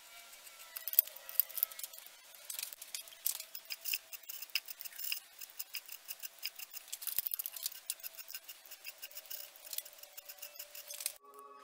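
Hand file rasping back and forth across the edge of a hammer-textured copper sword guard, in quick irregular strokes. It cuts off suddenly near the end, and music with held tones takes over.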